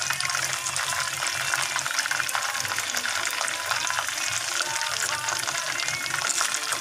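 Chicken pieces deep-frying in hot oil in a steel saucepan: a steady dense sizzle and crackle, with metal tongs clicking against the pot as the pieces are turned and lifted.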